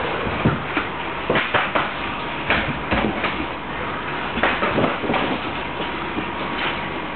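Cats knocking and scraping about in a cardboard box: irregular clusters of short knocks and rustles over a steady background hiss.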